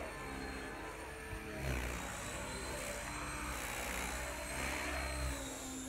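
Electric RC helicopter, a TSA 700 with 685 mm rotor blades, flying freestyle aerobatics: the rotor's buzz and whoosh swells and shifts as the pilot works the collective, over a steady high motor whine.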